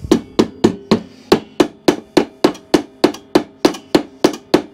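Rapid, even mallet taps on the metal belt-variator bracket of a mower, about three and a half strikes a second, each with a short metallic ring. The taps are shock treatment to free a variator seized from lack of maintenance, which is starting to move.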